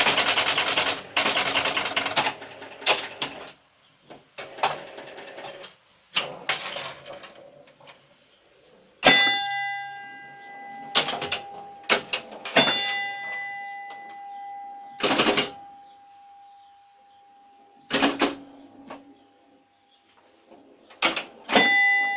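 1966 Williams A-Go-Go electromechanical pinball machine in play. It opens with a few seconds of rapid, dense relay clattering as the game starts up. Scattered clicks and knocks from the ball, flippers and relays follow, and a long ringing note sounds out three times: near a third of the way in, around halfway, and near the end.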